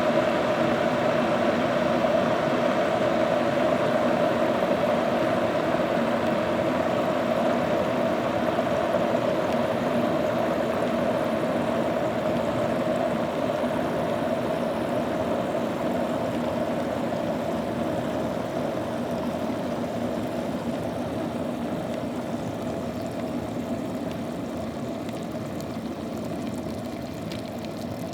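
Water boiling hard inside an electric kettle: a steady rumbling, bubbling roil that slowly gets quieter over the stretch.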